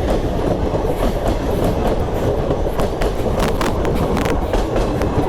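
Passenger train running on the track: a steady, loud rumble with irregular clicks of the wheels over the rails.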